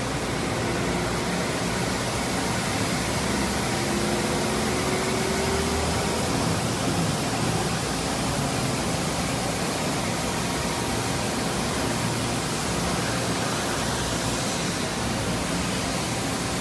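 Coolant spraying and splashing inside the enclosure of a Mori Seiki ZT1500YB CNC lathe as it machines: a steady rushing hiss. A faint rising whine comes in a few seconds in.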